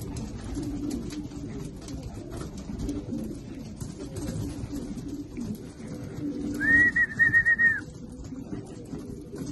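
Tippler pigeons cooing while they peck at seed, with light tapping of beaks on the floor. About two-thirds of the way in, a loud, high, wavering whistle-like note lasts about a second.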